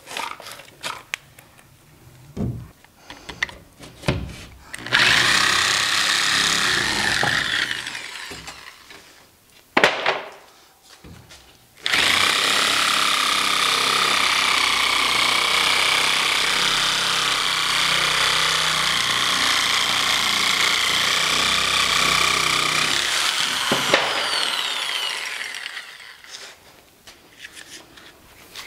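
Corded power tool cutting cement backer board: a short run that winds down, then a steady run of about twelve seconds that winds down again. A few knocks and taps come first, and there is one sharp knock between the runs.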